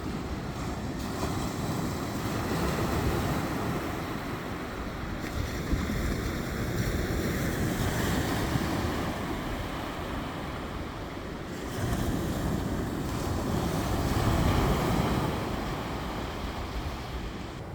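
Sea waves washing in and breaking, in swells that rise and fall, loudest about two thirds of the way through, with wind buffeting the microphone.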